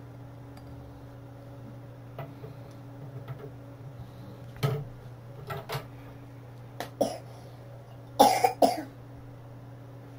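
Small metal screws and a small Allen wrench being handled while fitting a CPU waterblock's mounting bracket: a few short clicks and knocks over a steady low hum, the loudest a quick cluster of three about eight seconds in.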